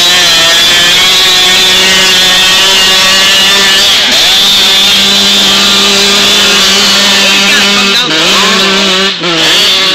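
Small dirt bike engine running hard at high, steady revs as it churns through deep mud, then revving up and down near the end.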